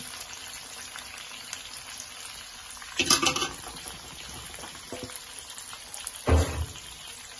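Sliced onions deep-frying in hot oil in a black iron wok, giving a steady sizzle as a wire skimmer is worked through them. Two short, louder metal clatters break in, about three seconds in and again after six seconds.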